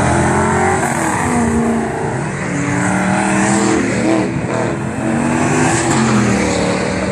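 Car engines accelerating hard as vehicles pull out past the crowd, the pitch climbing and falling back several times as they rev.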